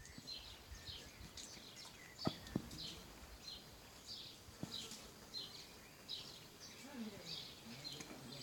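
A small bird chirping, short high falling notes repeated about twice a second. Two sharp clicks about a third of the way in are the loudest sounds, and a few low sounds come near the end.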